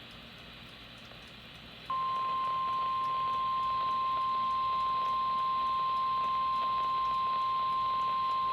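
Weather-radio hiss, then about two seconds in a single steady tone near 1 kHz switches on and holds. This is the NOAA Weather Radio 1050 Hz warning alarm tone, which signals that a warning, here a severe thunderstorm warning, is about to be broadcast.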